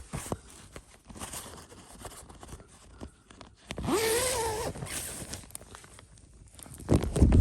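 A tent door zip being pulled open, with fabric rustling. About four seconds in a sheep bleats once, a wavering call of about a second. Loud handling thumps and rustles come near the end.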